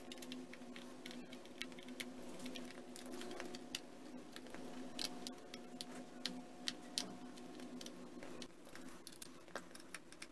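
Small screwdriver turning out the back-cover screws of a plastic PDI DM930 multimeter: scattered faint clicks and ticks of the driver tip and screws in the plastic case as it is handled, over a steady low hum.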